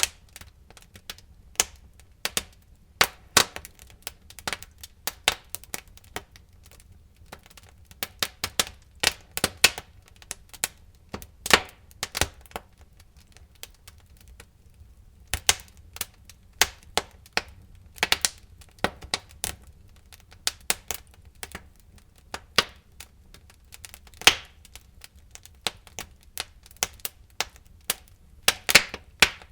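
Wood fire in a fireplace crackling, with irregular sharp pops and snaps, a few of them loud, over a low steady rumble.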